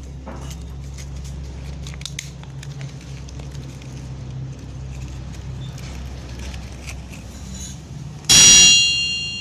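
Scattered light metallic clicks of hand work on an engine block over a steady low hum, then near the end one loud metallic clang whose high ringing tones fade over about a second.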